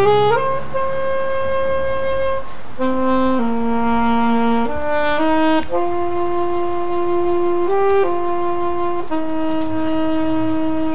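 A solo wind instrument playing a slow Christmas melody one note at a time, mostly long held notes, with a quick upward slide into the first note.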